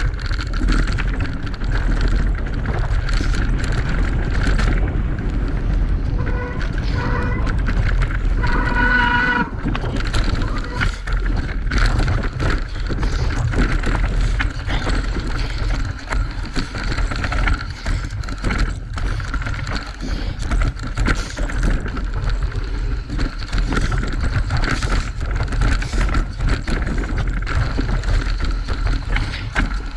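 Electric mountain bike riding a rough singletrack: wind buffeting the microphone, with the tyres and frame rattling and clicking over the ground and a steady high whine underneath.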